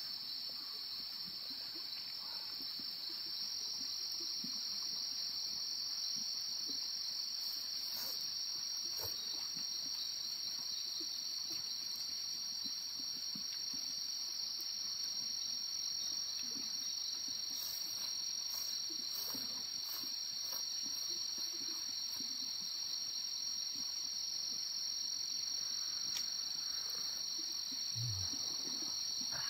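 A steady, high-pitched chorus of insects trilling without a break, with a few faint clicks scattered through it.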